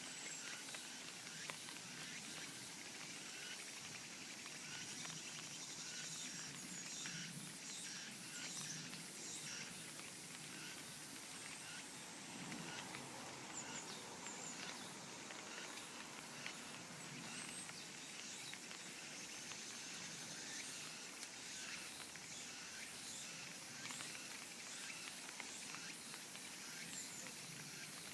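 Faint outdoor ambience of light summer rain pattering in many small ticks, with insects, cicadas among them, calling steadily underneath.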